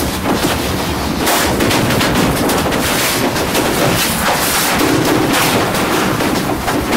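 Gloved hands working the plastic casing of a Xerox Phaser 6000 printer close to the microphone: continuous rubbing and scraping with many small, rapid clicks.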